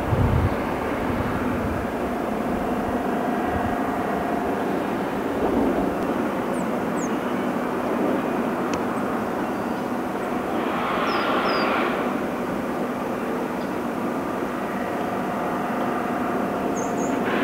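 Heavy diesel engine of quarry machinery running steadily, a constant drone with a louder rush of noise about eleven seconds in.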